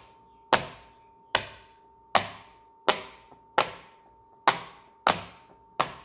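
Pop-it fidget toy's bubbles pressed through one at a time on its loud side: eight sharp pops at a steady pace, a little under one a second.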